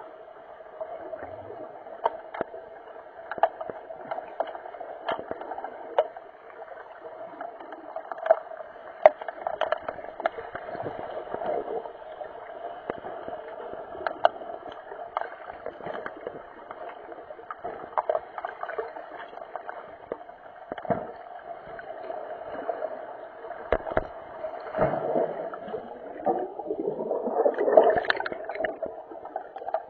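Muffled underwater noise of a swimming pool during underwater hockey, recorded underwater. A steady dull rush is broken by frequent sharp clicks and knocks. It swells into a louder surge about 26 to 28 seconds in.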